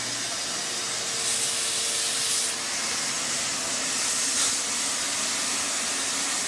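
Steady hiss of steam from a Vapor Chief steam/vacuum extractor tool working over a carpet floor mat on steam only, no water injection. Under it, the steady hum of the Shop-Vac wet/dry vacuum pulling through the same nozzle.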